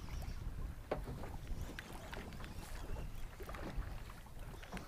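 Water slapping irregularly against the hull of a small boat over a steady low rumble of wind on the microphone.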